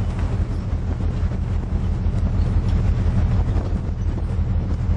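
Strong wind buffeting the microphone: a steady low rumble.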